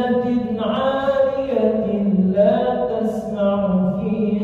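A male imam chanting Quran recitation in long, drawn-out melodic phrases, his held notes bending up and down in pitch.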